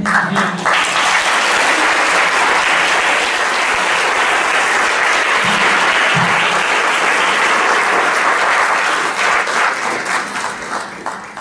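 Audience applauding, starting all at once and tapering off near the end.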